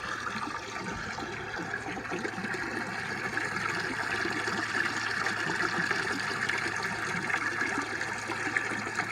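Water from a wine-barrel waterfall pouring and splashing steadily into a small pond, with a low steady hum underneath.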